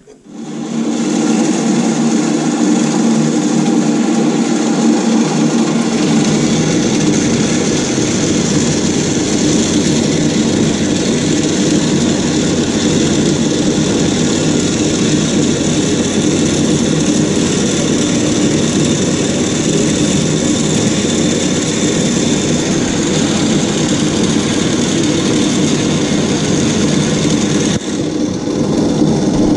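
Horizontal metal-cutting band saw starting up and running steadily, cutting through steel stock.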